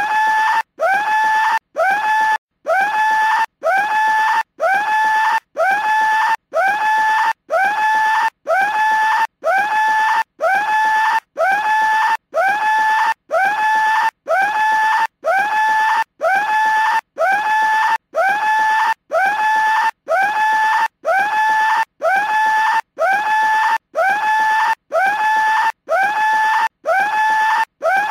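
A cartoon skull telephone ringing with a scream: the same short scream repeats about three times every two seconds, each one swooping up quickly and then holding one pitch, with a brief silent gap between screams.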